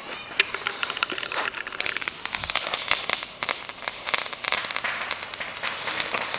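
Small firecrackers going off in a rapid, irregular crackle of sharp pops, starting about half a second in.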